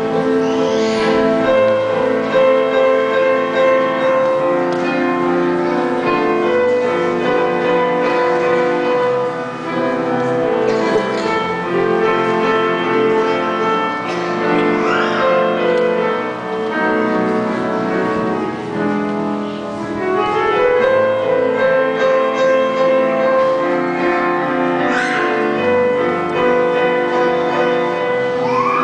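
Piano played four hands as a duet: a slow classical piece of held chords and melody.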